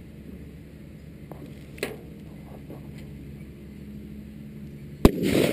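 A single bolt-action precision rifle shot near the end, followed by a rolling echo. Before it there is only a steady low background and one faint tap about two seconds in.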